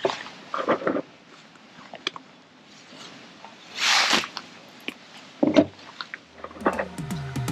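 Small clicks and rustles of an angler handling a rod, reel and waterproof jacket, with a short whoosh about four seconds in as a rod is swung out to cast.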